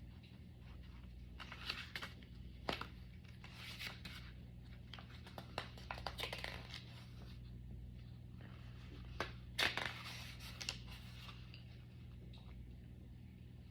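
Irregular rustling, scraping and sharp clicks of things being handled close to the microphone, loudest around 2–3 s and 9–10 s and settling down near the end, over a steady low hum.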